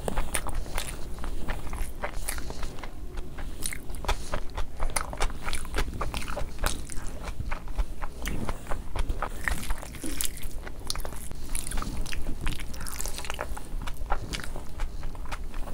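Close-miked chewing and wet mouth sounds of someone eating mouthfuls of biryani rice and gravy by hand: a dense, irregular run of smacks and clicks.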